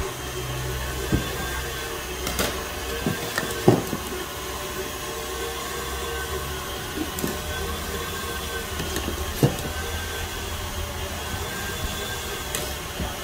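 Steady hum of kitchen machinery with scattered light clicks and knocks from utensils and containers being handled on a steel counter; the sharpest knock comes a few seconds in.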